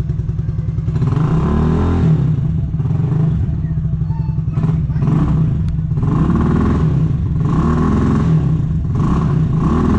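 RPS Condor 150cc single-cylinder four-stroke engine (a Honda Grom clone) running on its first start-up, the throttle blipped about four times so that the engine note rises and falls between steady idling.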